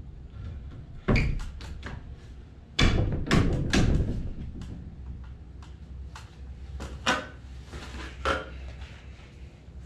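Wooden knocks and bangs from the timber framing of a garage wall being worked by hand: one knock about a second in, a quick run of several around three to four seconds, and two more near the end.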